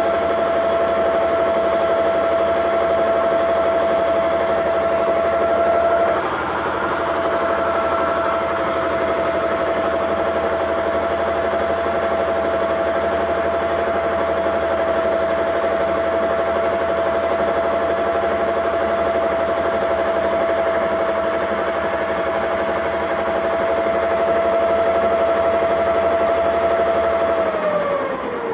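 Komatsu bulldozer's N855 diesel engine running steadily, with a constant high whine over the engine noise. Near the end the pitch slides down as the engine slows.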